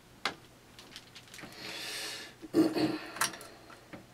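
Handling noises at a workbench: a sharp click, a short hiss, then a brief pitched sound and another click as things are moved about.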